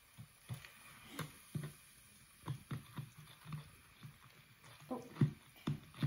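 Irregular light taps and knocks, about two a second and louder near the end, as a glass measuring cup is shaken and tapped against a bottle's neck to pour baking soda in.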